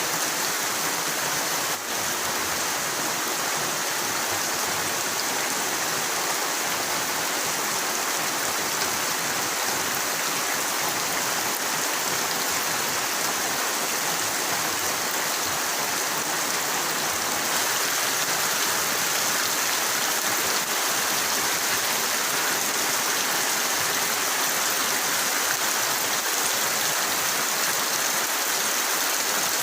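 Heavy rain pouring down steadily as one dense, even hiss, getting a little louder past the halfway point.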